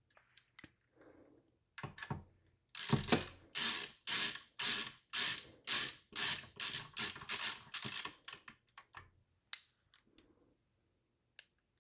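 Ratcheting screwdriver clicking in a steady run of about a dozen rasping strokes, about two a second, while screws go into the mini PC's fan cover. A few light clicks and taps come before and after the run.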